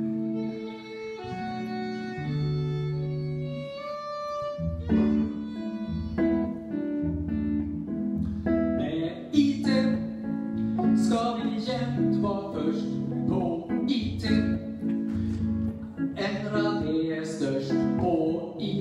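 Live music: a violin plays held notes over a guitar for the first few seconds. From about five seconds in the guitar strums on alone under a man singing.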